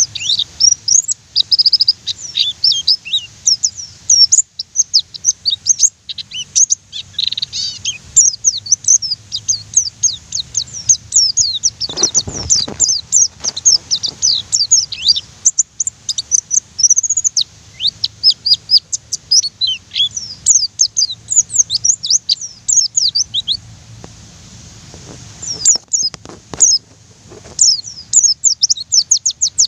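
White-eye (pleci) song: a fast, busy run of high chirps and short rolling trills, with a brief lull past the halfway point. Two short knocks come through, one near the middle and one near the end.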